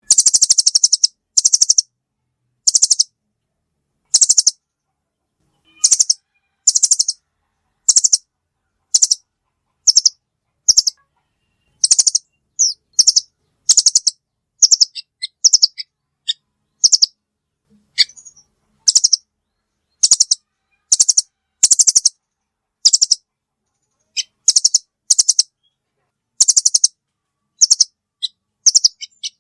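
Velvet-fronted nuthatch calls played as a bird-trapping lure: short, high, rapid chattering trills repeated about once a second, with a few brief single notes between.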